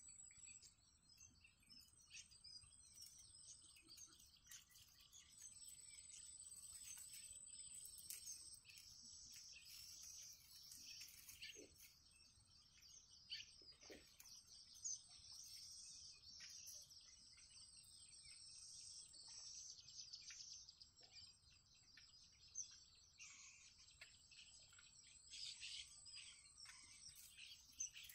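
Faint, high-pitched begging chirps of yellow bittern chicks, many quick chirps coming in busy stretches, over a thin steady high tone.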